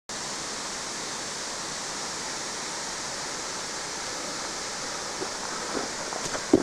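Waterfall running with a steady, even rush of water. Near the end a few soft knocks come through, with one sharp knock just before it ends.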